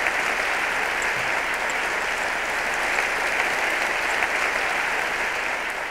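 A large audience applauding steadily, a dense even sound of many hands clapping, starting to fade near the end.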